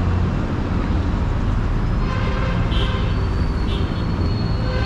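Road traffic: cars driving past with a steady low rumble, and short car-horn toots between about two and four seconds in.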